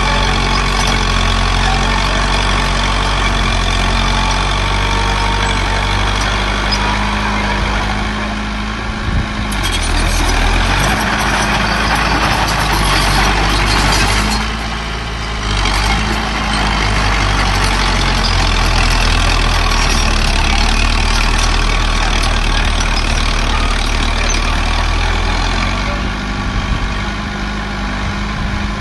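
Diesel engines of earthmoving machinery, a bulldozer and dump trucks, running steadily at work. The engine pitch shifts a few times as the load or throttle changes.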